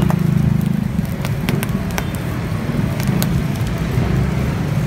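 Skewers of chicken intestines grilling over a charcoal fire, with scattered sharp pops and crackles over a steady low rumble.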